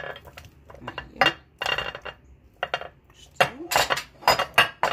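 Boiled small potatoes tipped from a glass bowl into a glass baking dish, knocking and clinking against the glass and each other in a string of irregular knocks that come thicker in the second half.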